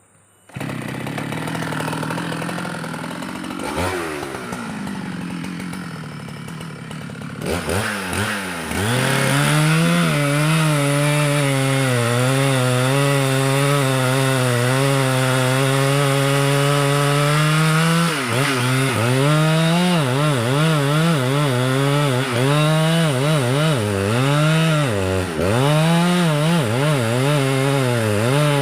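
Two-stroke chainsaw that begins abruptly about half a second in, running unevenly at part throttle, then from about nine seconds held at high, steady speed while cutting into a red meranti trunk. From about eighteen seconds its pitch repeatedly dips and recovers as the engine is loaded in the cut.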